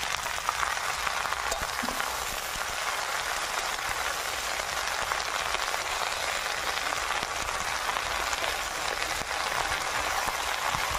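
Chopped kulekhara greens sizzling in hot mustard oil in a kadai, with a steady frying hiss as they go into the oil and are stirred.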